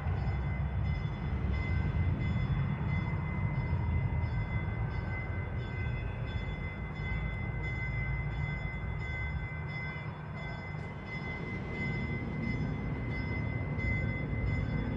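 Steady low rumble of city street noise, with a faint regular high ticking about twice a second and a faint steady high tone above it.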